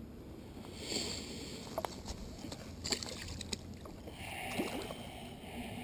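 Shallow lake water sloshing and splashing at the shoreline as a chain pickerel is lowered by hand and let go, with a few short splashy washes.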